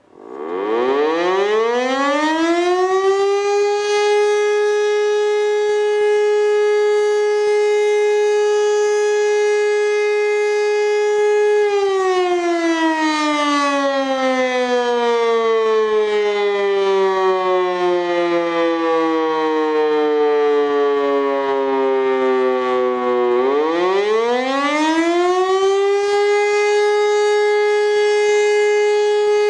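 E57 electromechanical civil defence siren spinning up from silence to a steady tone, holding it for about ten seconds, then winding down in a long falling glide and spinning up again near the end. This is the on-off rhythm of the German fire alarm signal (Feueralarm) at a test alarm.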